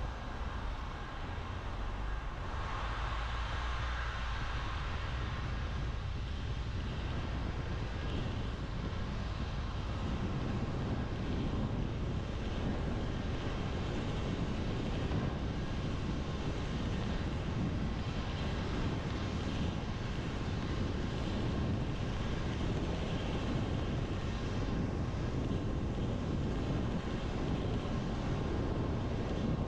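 Car driving on rain-wet city roads: steady road and tyre noise with the hiss of wet pavement, and the low rumble grows stronger about ten seconds in.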